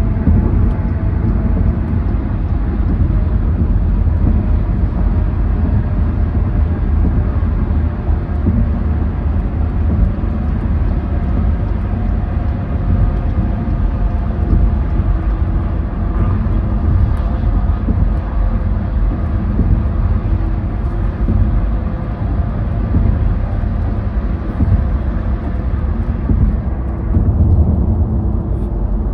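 Road and tyre noise of a car cruising at highway speed, heard from inside the cabin: a steady deep rumble. The higher hiss falls away near the end.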